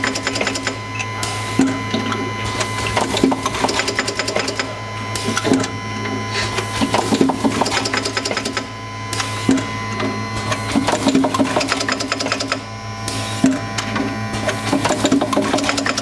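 Automatic tube plugging machine running: a steady buzz from the vibratory bowl feeder under fast, irregular clattering and clacking as the rotary table indexes and the pneumatic cylinders press plugs into the tubes, with short bursts of air hiss recurring every second or so.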